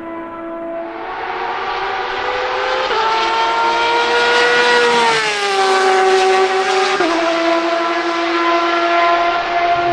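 Porsche 911 RSR (991.2) race car's flat-six engine on open exhaust, running at high revs as the car drives by. The note is high and held steady, steps up about three seconds in, glides down about halfway through and steps down again about seven seconds in. It is loudest just after the middle.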